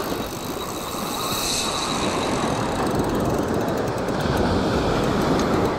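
Steady wind rumble on the microphone, mixed with small waves washing onto the shore.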